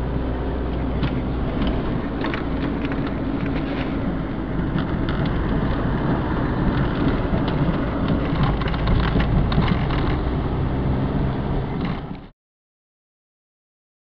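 Car driving along a town street, heard from inside: steady engine hum and road noise with scattered light clicks and rattles. The sound cuts off to dead silence about twelve seconds in.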